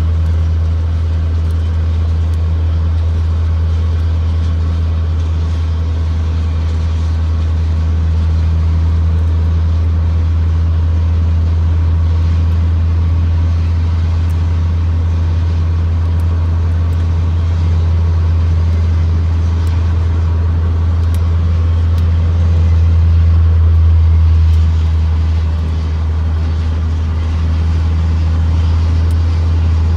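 Steady low drone of a vehicle cruising at highway speed, heard from inside its cabin: engine and road noise, with no clear change throughout.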